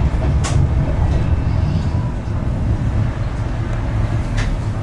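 Blackpool tram running along the track, a steady low rumble with two sharp clicks, one about half a second in and one near the end.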